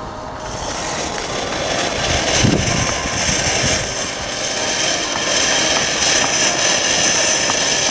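Category 1 firework fountain burning: a hissing spray of sparks that builds up over the first couple of seconds, with crackling later on.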